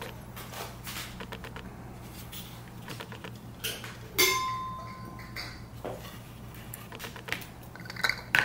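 Light clicks and taps of a clear plastic tea infuser being handled. A glass teapot clinks about four seconds in with a ringing tone that fades after about a second, and clinks again near the end.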